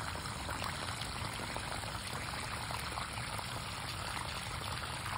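Water from a garden hose pouring steadily onto wet soil and gravel.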